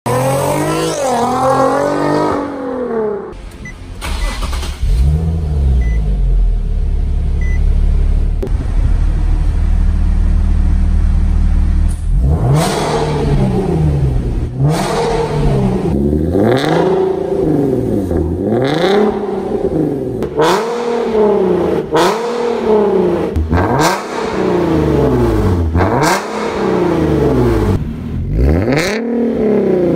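Nissan 370Z Nismo's 3.7-litre V6 through a de-catted ARMYTRIX valvetronic exhaust: one rev rising and falling, then idling with a deep low drone, then repeated quick revs rising and falling about every two seconds.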